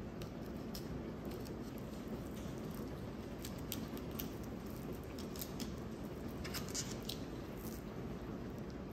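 Knife slicing along the back of a whole sea mullet on a bamboo cutting board: faint, scattered snicks and crackles as the blade cuts through skin and scales, over a steady low room hum.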